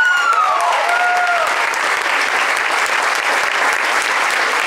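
Theatre audience and cast applauding steadily, with a few cheering voices calling out in the first second and a half.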